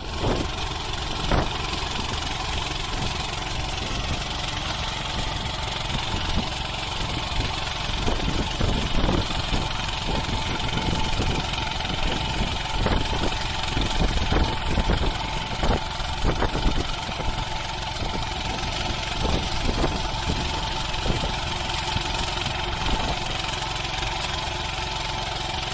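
Small engine of a riding rice transplanter running steadily as the machine plants, with irregular knocks and clacks throughout.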